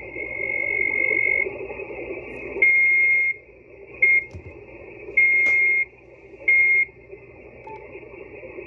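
A steady whistle of about 2 kHz coming through the Yaesu FT-991A transceiver's speaker over band hiss, keyed on and off in several irregular beeps, some long and one very short. It is an unmodulated carrier sitting on the 20-metre SSB frequency, typical of interference.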